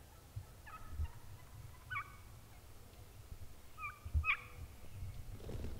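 Wild turkeys calling: several short, separate calls, the last two close together a little past the middle.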